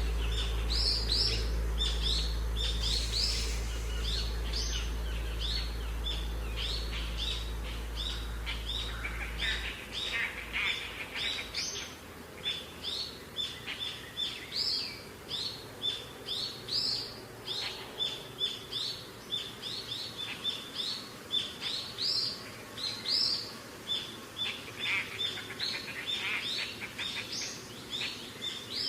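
Birds chirping continuously, many short high chirps following one another several times a second. A steady low drone underlies the first ten seconds, then stops.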